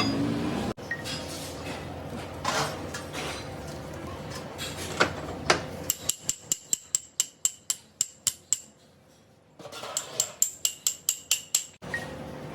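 A hammer tapping on a metal part: a few single knocks, then two quick runs of light strikes, about five a second, each with a ringing metallic tone.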